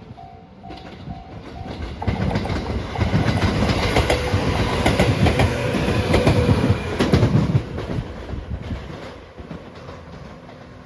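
A train passing over a level crossing. Wheel-on-rail noise and clickety-clack over the rail joints build from about two seconds in, are loudest in the middle, and fade after about eight seconds. The crossing bell's repeated ding is heard in the first two seconds.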